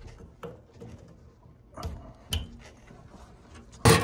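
A few light knocks and scrapes of metal parts being handled as a replacement ECM blower motor is fitted into a furnace's sheet-metal blower housing, with a louder burst of clattering handling noise near the end.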